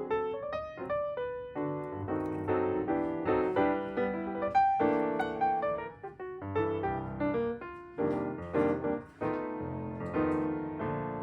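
Background piano music, a gentle melody of separate notes.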